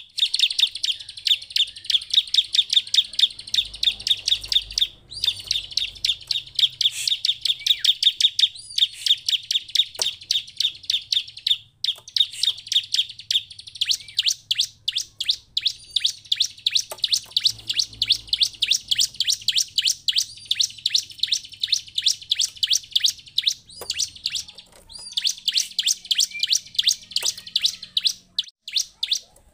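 Bar-winged prinia (ciblek) calling: a rapid, nearly continuous run of sharp, high chirps, broken by a few short pauses.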